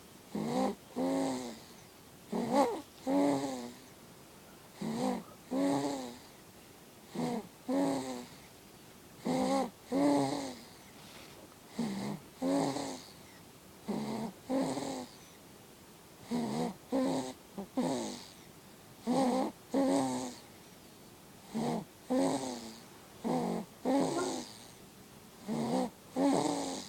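Newborn baby snoring in her sleep: pitched snores in pairs, one pair roughly every two seconds, in a steady rhythm.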